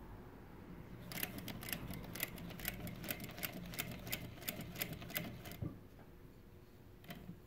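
Juki DDL-8700H industrial single-needle lockstitch sewing machine stitching slowly through thick, multi-layer dog-collar webbing: a low motor hum with a steady run of about three to four stitch clicks a second, starting about a second in and stopping with a soft thump a little after the middle.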